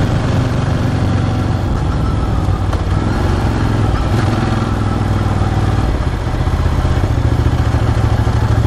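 Ducati Hypermotard 1100S's air-cooled L-twin engine running steadily at low revs, as the bike is being run in, getting a little louder near the end.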